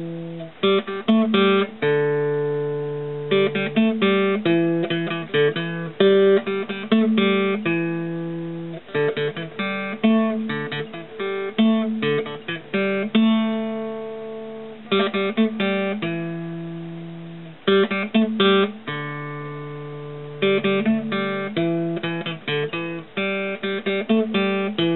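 Acoustic guitar music: picked and strummed chords, each note ringing out and fading before the next.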